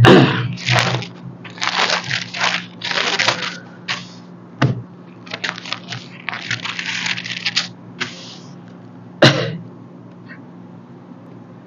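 Paper rustling in short crinkly bursts with a few sharp clicks: Bible pages being turned.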